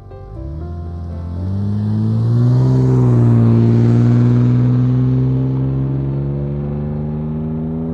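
Nissan Skyline R34's naturally aspirated RB20DE straight-six engine revving up over about two seconds, then held at a steady high rpm.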